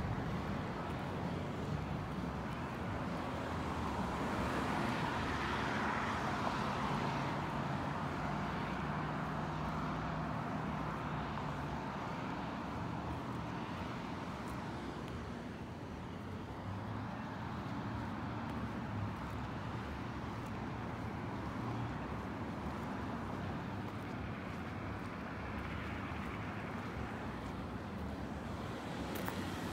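Road traffic: cars driving past with tyre and engine noise swelling and fading, the loudest pass about five seconds in and another near the end.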